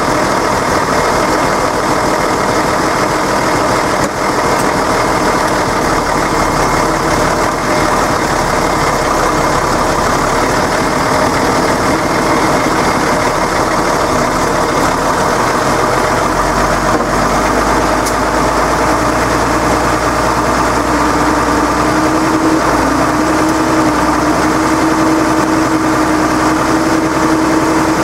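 Deutz-Fahr tractor's diesel engine running steadily while towing a stuck off-road vehicle out of the mud, its pitch stepping up slightly about three-quarters of the way through.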